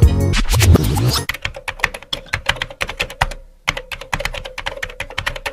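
Computer keyboard typing sound effect: rapid, irregular key clicks with a brief pause partway through. It follows the last second of a music track.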